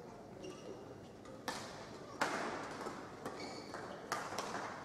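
Badminton rally: crisp racket strikes on the shuttlecock about once a second, five in all, the loudest about two seconds in, with short squeaks of shoes on the court mat between them.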